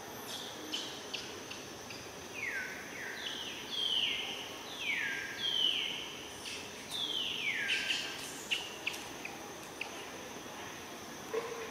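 A bird calling a run of about six descending whistled notes, each sliding down over about half a second, starting about two seconds in. A steady high insect drone and a few sharp ticks sit underneath.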